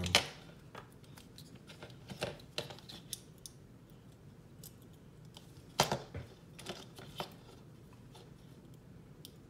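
Test-lead alligator clips clicking and rattling as they are handled and clipped onto a transformer's wire leads: scattered sharp clicks, the loudest about six seconds in.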